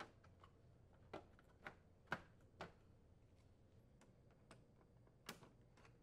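A handful of faint, irregularly spaced clicks and taps as the control panel assembly's bottom covers are handled and set into place.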